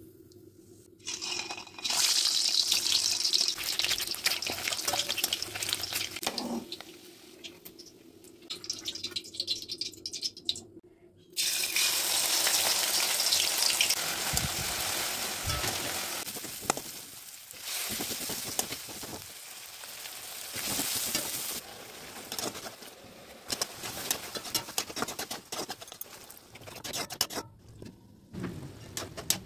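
Hot oil sizzling in a pan as finely chopped ingredients fry and are stirred with a spatula. The sizzle starts about a second in and swells and fades several times, with a quieter stretch in the middle.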